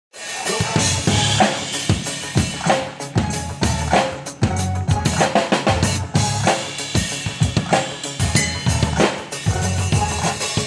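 Drum solo on an acoustic drum kit: rapid, continuous strokes across the snare, toms and bass drum, with cymbal hits and rimshots.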